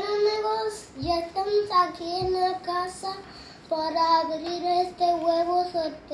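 A child singing a simple tune in a few short notes, then one long held note.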